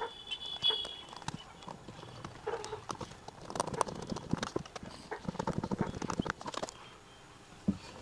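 Screws being driven into the F&D A111F home theater's case with a screwdriver: quick runs of clicks and knocks, fastest and densest in the middle.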